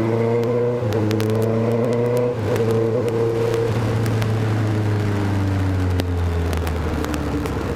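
Motorcycle engine with a loud exhaust running under way, its note wavering and then sinking slowly through the second half as the throttle eases off.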